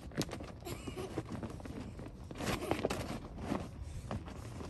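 A puppy mouthing and pushing an inflatable plastic ball, making irregular crinkles, taps and scrapes of thin plastic, thickest about two and a half to three seconds in.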